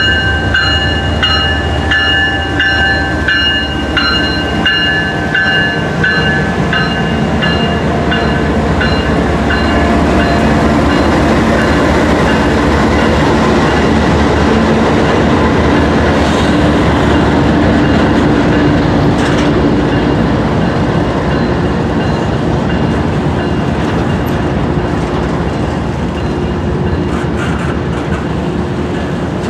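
A train rolling past with the rumble and clickety-clack of wheels on rail. For the first several seconds a bell rings in a steady beat, somewhat under two strokes a second, then fades out.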